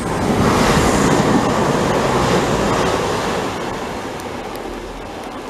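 Steady rush of heavy rain mixed with a diesel multiple-unit passenger train approaching on the line. The noise swells in the first second, then slowly eases.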